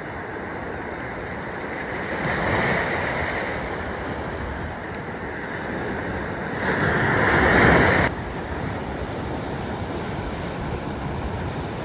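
Ocean surf washing on the beach, with wind rushing over the microphone. The surf swells twice, about two seconds in and again around seven seconds, and the second swell cuts off suddenly.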